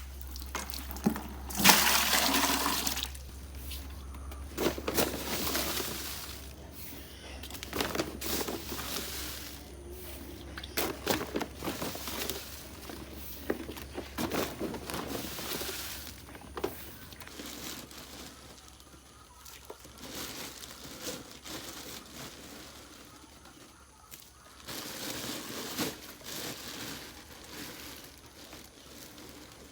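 Water splashing and running in irregular bursts, with a loud surge about two seconds in and another near the end.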